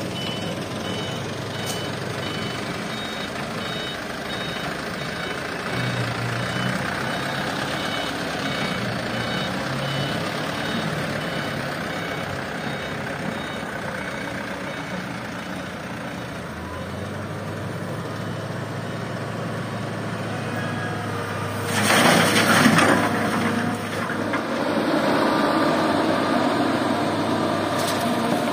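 Dump truck reversing alarm beeping at a steady even rate over a diesel engine running, the beeps fading out partway through. Later a loud rushing burst, and more after it: soil and rock pouring from an excavator bucket into a steel dump bed.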